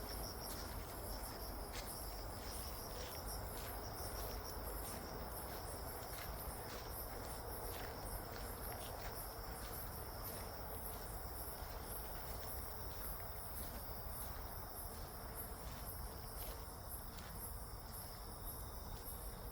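Crickets chirping: high, steady, pulsing chirps repeating evenly throughout.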